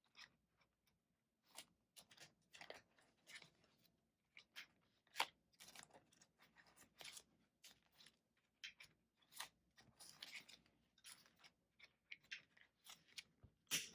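Faint, irregular rustling and crinkling of clear plastic cash envelopes and paper bills being handled and flipped in a ring binder, with small clicks and taps; the sharpest tap comes about five seconds in.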